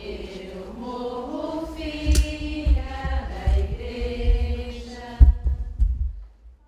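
A group of voices singing together, with several heavy low thumps, the loudest about five seconds in. The singing stops shortly before the end.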